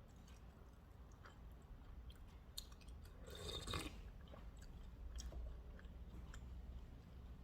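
A person chewing food close to the microphone, with small soft mouth clicks and a louder noisy stretch just after three seconds in.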